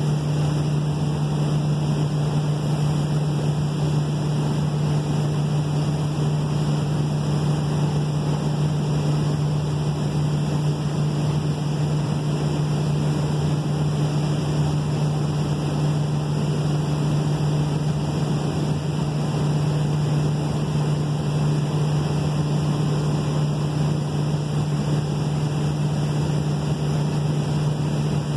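Steady, unchanging drone of ship engines and machinery: a low hum with a constant rushing noise over it.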